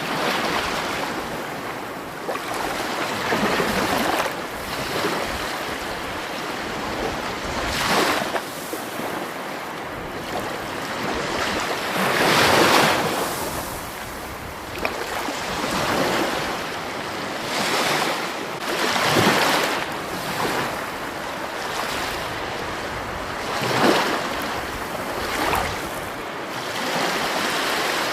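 Water rushing steadily, swelling louder every few seconds in uneven surges.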